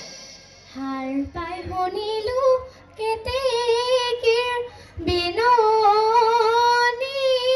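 A young girl singing a Bihu song in a high voice, holding long wavering notes, with a few drum beats underneath.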